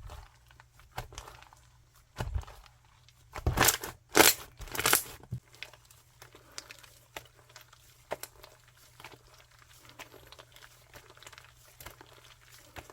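Slime being squeezed and stretched by hand, making crinkling, crackling sounds. A few louder crackling bursts come about three to five seconds in, followed by fainter scattered clicks and crackles.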